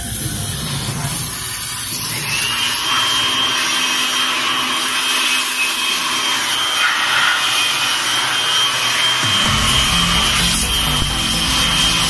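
A water jet from a pressure-washer spray gun hitting the fins of a window-type air conditioner's condenser coil, a steady hiss. A steady high tone sits over it from about two seconds in.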